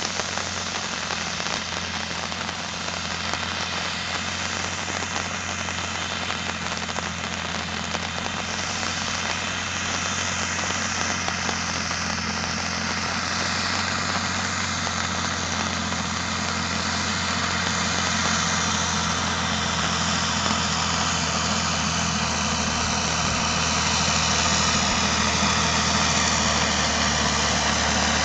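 Valtra T151 tractor's diesel engine running steadily under load as it pulls a tillage implement through the field, growing gradually louder as it approaches.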